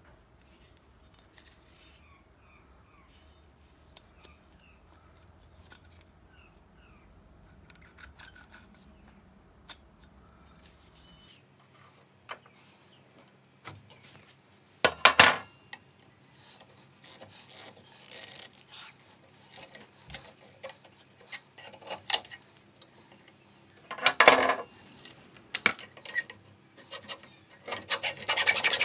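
Metal clattering and knocking as an old, rusty meat cleaver is handled and clamped in a bench vise, with two loud clanks, one about halfway through and one a few seconds before the end. A hacksaw then starts sawing at the cleaver's handle just before the end.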